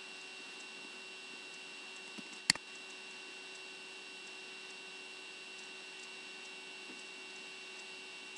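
Steady faint electrical hum and hiss, with one sharp click about two and a half seconds in.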